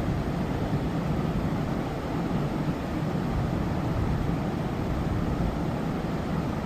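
Steady rushing of fast-flowing river water at a waterfall, an even roar without breaks, heaviest in the low range.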